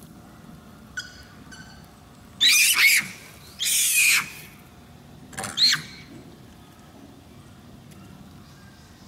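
A crow cawing three times, loud and raspy, over about three seconds, with a short faint chirp just before.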